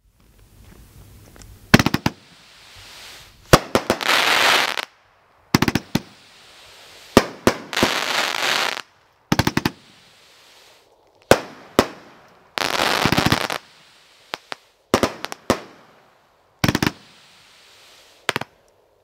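A 500-gram, 25-shot consumer firework cake ('Fast Food') firing, with sharp bangs in quick clusters every second or two. Several bangs are followed by about a second of dense crackling from the bursting stars.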